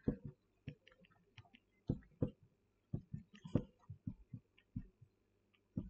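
Felt-tip marker writing on a whiteboard: an irregular scatter of short taps and faint squeaks as the letters are written.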